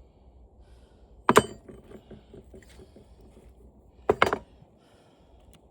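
Two sharp knocks about three seconds apart, the second one doubled: steel pieces from an old CRT television being set down on a weighing scale.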